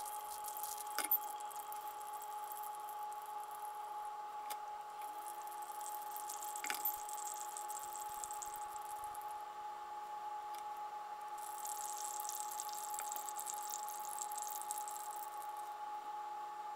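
Hot water poured from a gooseneck kettle onto coffee grounds in a Hario V60 paper-filter dripper: a steady watery hiss with a constant ringing tone under it, and a couple of light clicks about a second in and near the middle.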